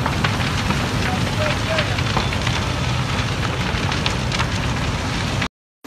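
Large building fire burning, a steady rushing noise full of crackles and snaps. It cuts off abruptly about five and a half seconds in.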